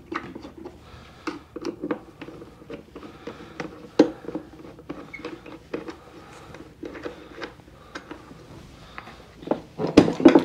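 A flathead screwdriver working the small screws of a kitchen sink's drain strainer, making scattered light metal clicks and scrapes. There is a sharper click about four seconds in and a louder clatter of metal parts near the end.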